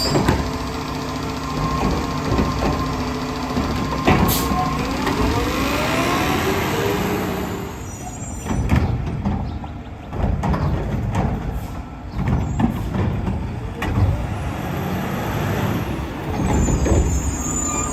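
Mack LR front-loading garbage truck with a McNeilus Meridian body working: the engine runs and revs, with a whine that rises and falls in pitch through the first half. A sharp bang comes about four seconds in, and a run of knocks and clatter follows in the second half.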